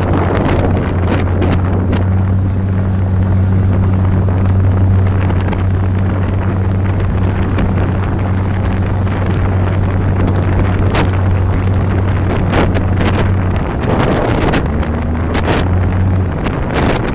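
2008 Polaris RZR 800's twin-cylinder engine running at a steady pitch under way, with wind buffeting the microphone and scattered sharp clicks. The engine note drops for a moment about three-quarters of the way through and again near the end.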